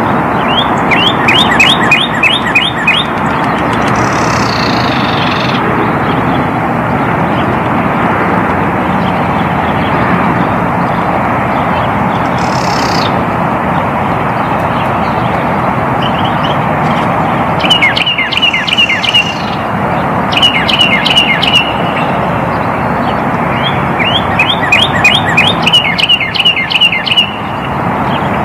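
Male northern cardinal singing: four phrases of rapid, repeated down-slurred whistles, one near the start and three in the second half. Steady road-traffic noise underneath.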